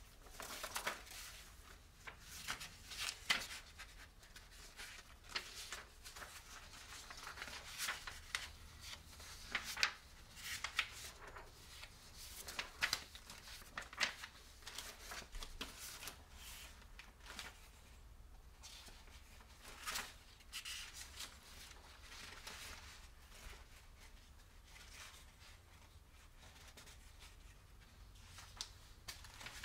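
Scattered small clicks, taps and rustles of hands handling gearbox parts on a workbench.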